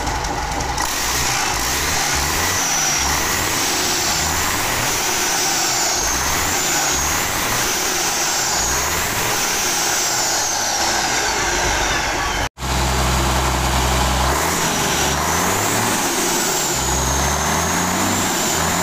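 Mitsubishi Fuso 6D22 straight-six diesel truck engine running steadily on a test stand after its overhaul, loud, with a faint high whine wavering up and down over it. The sound drops out completely for an instant about twelve seconds in.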